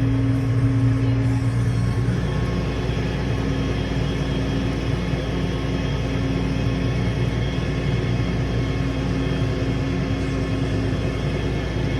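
An engine running steadily at a constant speed, with an even, unchanging low hum.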